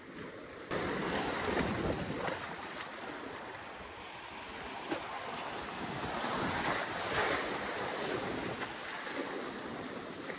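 Sea surf breaking and washing up on a beach, rising and falling in slow surges, with wind buffeting the microphone.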